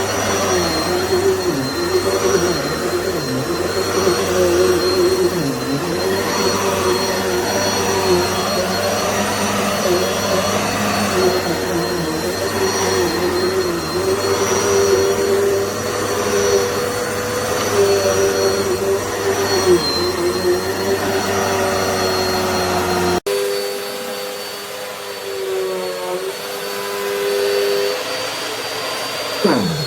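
Dirt Devil Multi-Surface+ upright bagless vacuum running steadily, its motor whine dipping and wavering in pitch as it is worked. After an abrupt cut about three-quarters of the way through it sounds quieter, and the pitch drops sharply at the very end.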